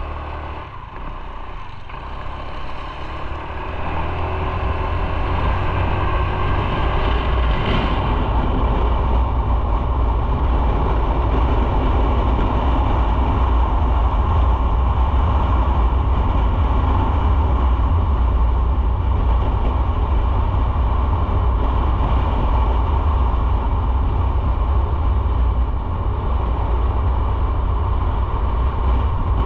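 Motorcycle picking up speed over the first few seconds, then running steadily at speed with a loud, steady low rumble.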